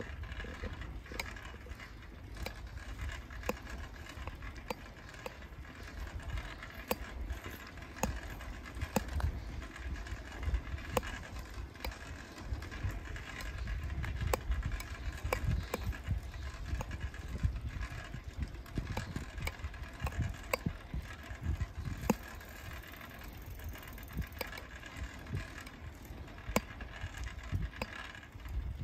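Bicycle being ridden along a paved road: a steady low rumble with scattered sharp clicks and rattles from the bike every second or two.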